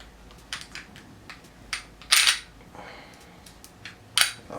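Sharp metal clicks and clacks of a Taurus G2C pistol being handled during field stripping, as the slide is worked for takedown. A few light clicks come first, then louder clacks about two seconds in and again near the end.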